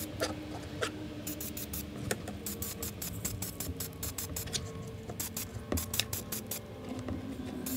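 DuraCoat aerosol spray can in use on a second coat: quick runs of short, sharp ticking rattles, several a second, over faint background music.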